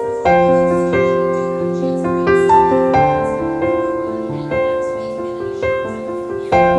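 Background piano music: a slow melody of chords and single notes, each struck and left to ring.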